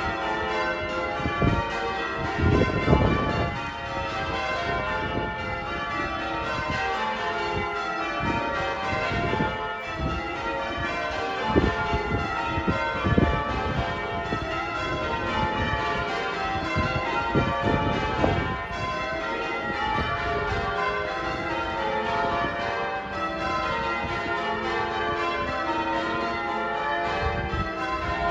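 Wakefield Cathedral's bells being rung in changes: a continuous stream of overlapping bell strikes. A few brief low rumbles come through, around three seconds in and again near the middle.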